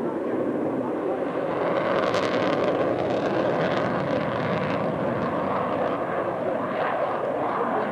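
Steady jet noise from an F-14 Tomcat's twin engines as it banks through a turn, with a harsher stretch about two seconds in.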